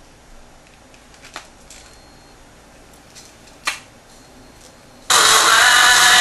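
A low hiss with two sharp clicks, then music from a small iPod speaker at full volume starts suddenly near the end.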